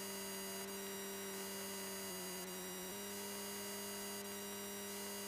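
Steady electrical hum in an aircraft radio/intercom audio feed, with a faint whine and a higher hiss that comes and goes about every two seconds.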